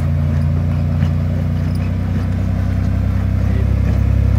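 Modified Toyota 4Runner's engine running steadily at low revs as the truck crawls up a rock ledge, getting a little louder near the end.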